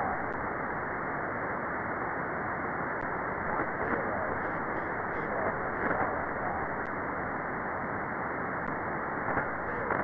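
Steady hiss from a ham radio receiver on the MO-122 (MESAT1) satellite's single-sideband downlink, held below about 2 kHz by the receiver's filter, with faint wavering traces of weak signals now and then.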